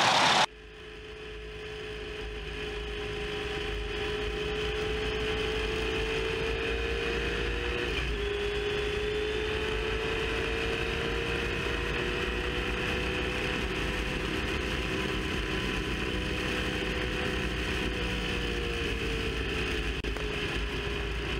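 Onboard sound of a 1967 Vollstedt 67B Indy car's Ford four-cam V8 running at speed, its engine note steady and drifting slowly up and down, with a brief dip about eight seconds in. It fades up after a sudden cut from louder noise at the very start.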